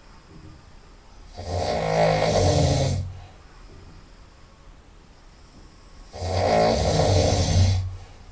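A person snoring loudly through the nose: two long, rattling snores, each about a second and a half, roughly five seconds apart.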